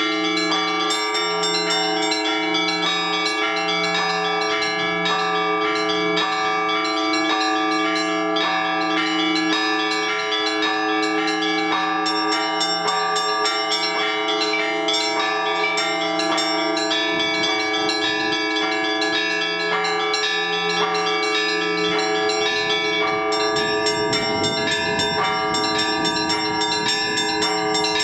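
Russian Orthodox church bells rung by hand in a continuous peal calling to the all-night vigil: small bells chiming rapidly over mid-sized bells, with the deepest bell struck about once a second. The deep bell falls silent for several seconds after the middle and comes back near the end.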